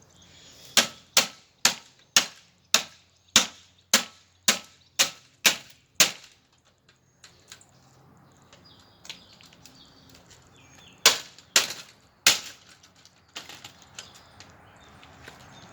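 Repeated hard blows striking an old Galaxy box fan to break it apart. About eleven sharp impacts come quickly, roughly two a second, then after a pause three more heavy blows followed by a few lighter knocks.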